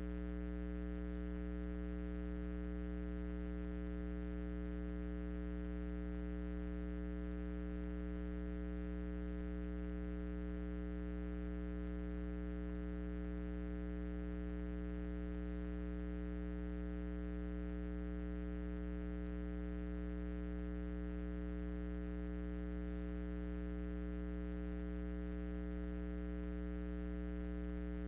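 Steady electrical mains hum, a low buzz with a string of overtones, unchanging in pitch and level.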